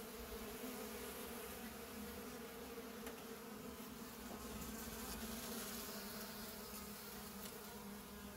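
Honeybees buzzing, a steady hum of many wingbeats, as they swarm over honey set out for them to feed on.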